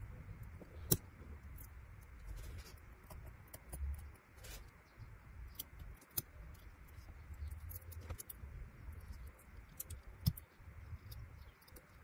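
Faint scattered clicks and scrapes of fine metal tweezers picking shards of a cracked camera cover glass out of an iPhone 12 Pro Max's lens ring, over a low steady hum. A sharper click comes about a second in and another near the end.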